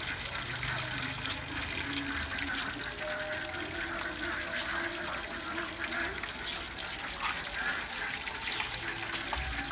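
Metal spoon scraping and tapping in a stone mortar as a pounded green paste is scooped into a small bowl: scattered light clicks over a steady hiss.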